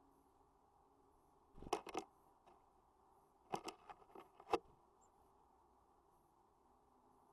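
Tits tapping and pecking at a bird feeder: two short clusters of sharp taps, one about one and a half seconds in and a longer one near the middle.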